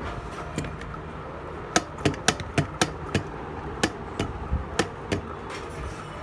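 A dozen or so sharp metal-on-metal knocks and clinks at uneven spacing, from about two to five seconds in, as steel starter-motor parts are handled and seated into the drive-end housing. A steady low workshop hum runs underneath.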